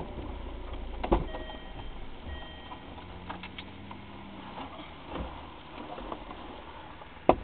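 Low engine rumble of a vehicle heard from inside its cab, with a sharp knock about a second in and a louder knock right at the end.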